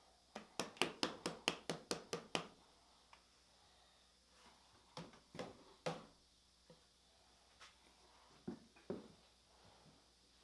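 A quick run of about a dozen light, sharp taps on wood, roughly five a second, then a few scattered single knocks: hands and tools working the oak boards of the shelf.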